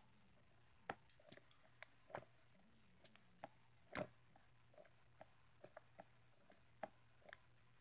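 Faint, scattered sticky clicks and small wet ticks of Flarp putty being squeezed and pressed by hand, coming irregularly. The loudest comes about four seconds in.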